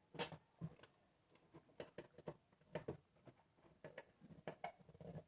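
Irregular small clicks and light taps of parts being handled and fitted back together by hand during a repair.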